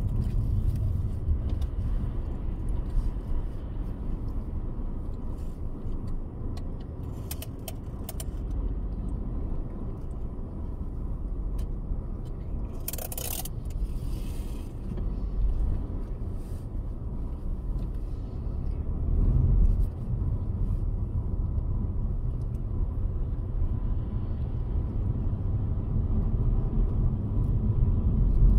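Steady low rumble of car road noise, engine and tyres, with a brief hiss about halfway through.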